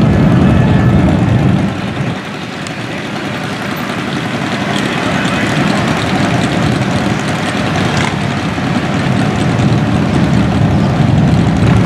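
Several cruiser motorcycles idling and creeping along in slow, crowded street traffic. The low engine noise drops about two seconds in, then slowly builds back up.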